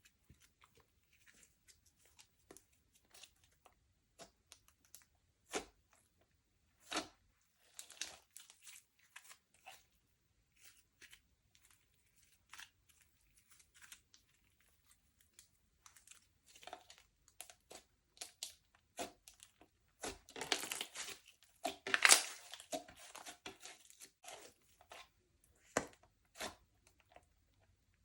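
Slime being worked by hand: scattered sticky pops and clicks, with a busier run of crackling about twenty seconds in that is the loudest part.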